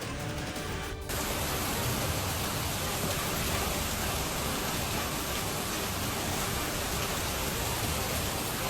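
Heavy storm rain pouring down in a dense, steady hiss that starts abruptly about a second in.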